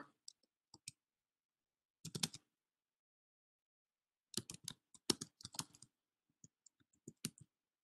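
Typing on a computer keyboard: a short cluster of keystrokes about two seconds in, then a quicker run of taps past the middle that trails off into a few scattered ones.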